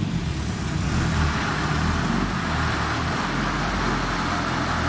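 1962 Morris Mini Traveller wagon's small engine running steadily as the car drives slowly.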